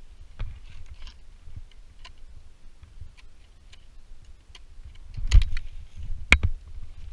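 Ice axe pick struck twice into hard glacier ice, two sharp impacts about a second apart in the second half. Light clicks and scrapes of climbing gear come before them.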